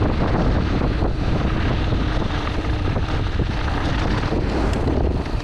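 Wind noise buffeting the microphone of a mountain bike riding at speed, over a steady rumble and rattle of knobby tyres on gravel and dirt.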